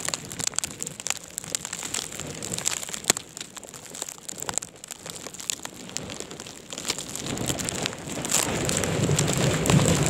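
Blizzard wind gusting over the microphone, with a steady scatter of sharp ticks and crackles from wind-driven snow striking it. The wind noise swells from about seven seconds in as a strong gust comes through.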